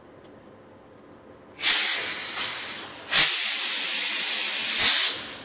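Two loud hisses of compressed air venting from a train's air system. The first starts about a second and a half in and fades. The second starts about three seconds in, holds steady for about two seconds and then cuts off sharply.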